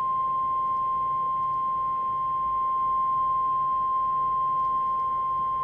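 NOAA Weather Radio warning alarm tone: a single steady high tone of about 1050 Hz, held without a break. It signals that a warning broadcast is about to follow.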